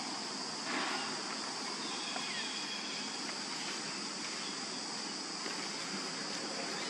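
Insects droning steadily at a high pitch over outdoor background hiss, with a short burst of noise just under a second in.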